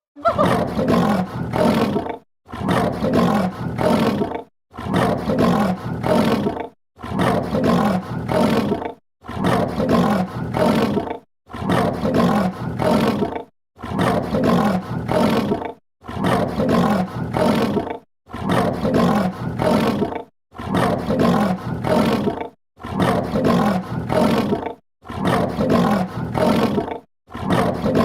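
A rough, growling roar repeated about thirteen times, each lasting about two seconds with a short silence between them, at a very even rhythm.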